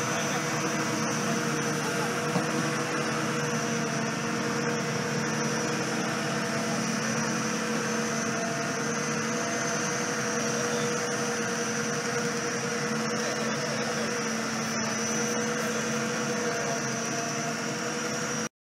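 The walking mechanical Elephant of Nantes, its engine and hydraulic machinery running with a steady hum and a high whine. It cuts off suddenly just before the end.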